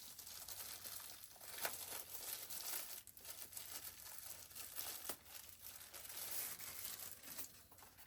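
Packaging being handled and unwrapped: irregular crinkling and rustling with scattered small clicks and taps.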